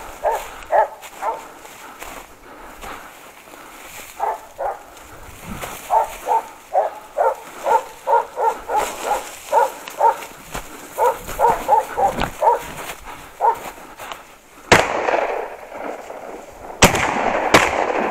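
Hunting dogs barking in quick runs of about three barks a second while on a wild boar. Near the end, a rifle fires three loud shots, one and then two close together about two seconds later, each ringing out in a long echo.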